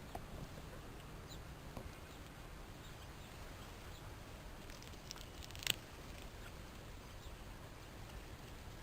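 Guinea pigs moving about: faint scattered ticks and rustles over a low steady hum, with one sharp click a little past the middle.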